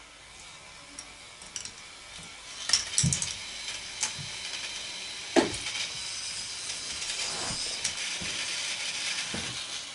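K'nex ball lift with a claw, its plastic parts clicking and clacking as it carries a ball. There is a sharp knock about five seconds in, then a steady mechanical rattle that fades near the end.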